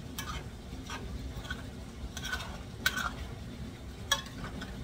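A metal spoon stirring and scraping diced potatoes and onions in a stainless steel frying pan, with several sharp clinks of spoon on pan.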